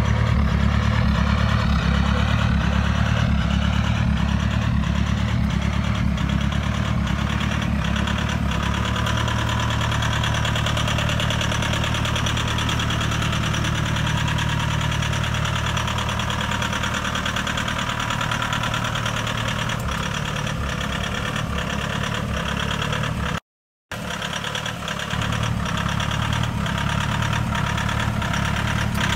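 Toyota Hilux 2.5 G's four-cylinder turbodiesel idling steadily. The sound cuts out completely for about half a second a little after three-quarters of the way through.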